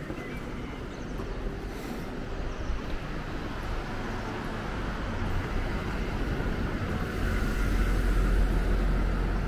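A car approaching, its engine and tyre noise growing steadily louder and loudest near the end.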